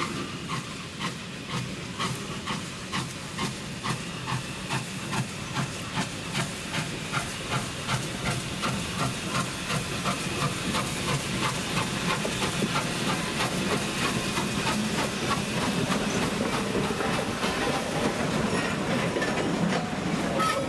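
Norfolk & Western 611, a J-class 4-8-4 steam locomotive, pulling away, its exhaust chuffs quickening as it picks up speed. About halfway through, the beats blend into a steady rush as the engine and tender pass close by.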